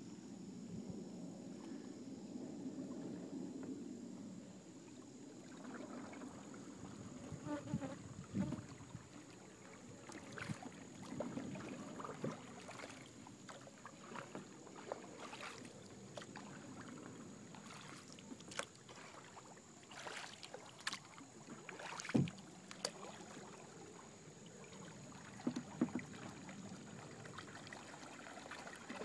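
Kayak paddling on calm water: scattered paddle strokes with splashes and drips, and light knocks of paddle on hull. A sharp knock about two-thirds of the way through is the loudest sound.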